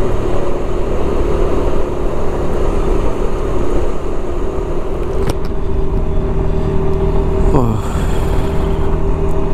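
Suzuki Burgman 400 scooter's single-cylinder engine running at a steady cruise, heard under wind and road noise on a helmet microphone. There is a single sharp click about five seconds in.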